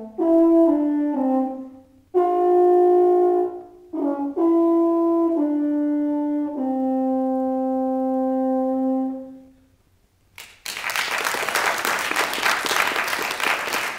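Euphonium playing a slow phrase of held notes that ends on a long low note and dies away, the close of the piece. A moment later, about ten and a half seconds in, audience applause breaks out and continues.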